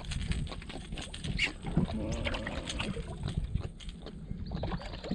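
Water lapping against a skiff's hull with wind buffeting the microphone, and scattered sharp clicks and knocks of handling.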